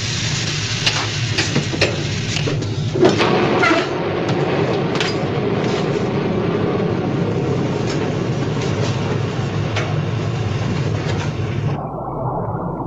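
Steady machinery rumble inside a diving submarine, with irregular metallic clicks and knocks. A wavering tone joins in about three seconds in, and the sound turns muffled near the end.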